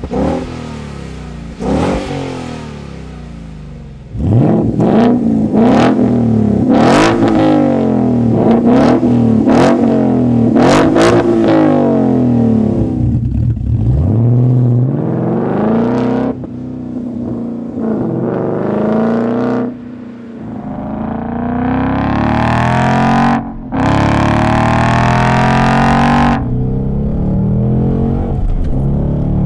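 2015 Ford Mustang GT's 5.0-litre V8, first through the stock exhaust: it fires and settles to idle, then is given a string of quick free revs. About halfway through, the same V8 runs through a Magnaflow Race Series axle-back, essentially a muffler delete, with more revs and longer rising pulls, ending high in the rev range around 5,500 rpm.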